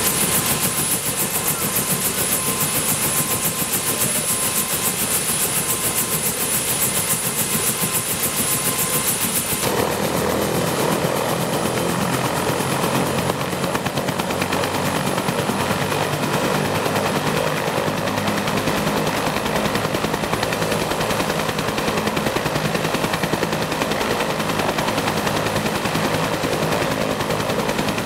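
Two-bladed Bell Huey-type helicopter running on the ground with its main rotor turning: a steady, rapid beating of the blades over a high turbine whine. About ten seconds in the sound changes, with more midrange and less of the high whine.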